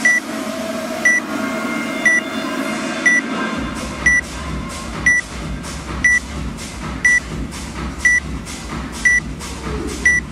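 Workout timer beeping once a second with short, high beeps, counting down to the start of a workout. A low steady hum comes in about three and a half seconds in.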